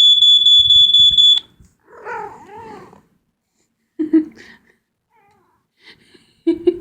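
A high, steady smoke-alarm beep, played as a recording, sounds for about a second and a half and cuts off sharply. A second later a cat answers with a drawn-out meow that wavers up and down in pitch.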